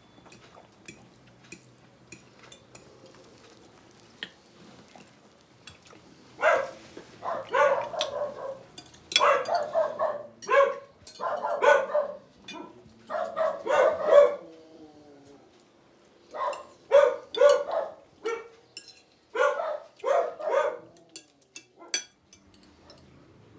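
A dog barking repeatedly in quick runs of barks, starting about six seconds in, with a brief falling whine about halfway through.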